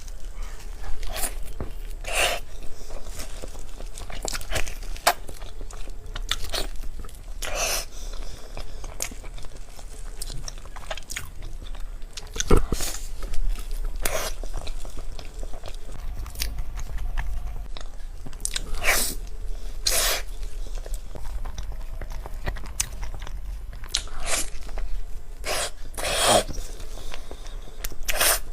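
Close-miked eating sounds: a person chewing and biting, with frequent sharp wet smacks and clicks at an uneven pace.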